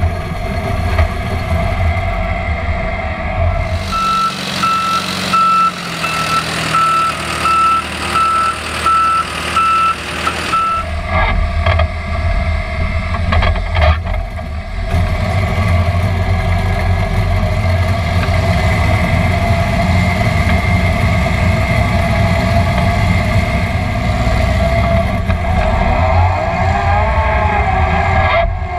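A 2004 Watson 2500 CM foundation drilling rig running under load as its auger bores into the ground and is drawn back up full of soil. From about four seconds in, a reversing alarm beeps steadily for around seven seconds.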